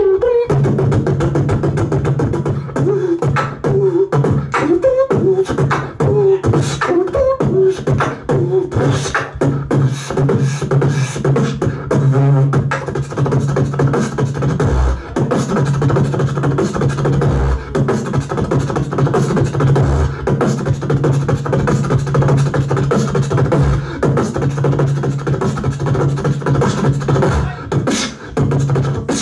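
Beatboxer performing into a microphone: fast mouth-made drum hits over a steady low bass hum, with a wavering vocal melody on top of the beat for the first several seconds.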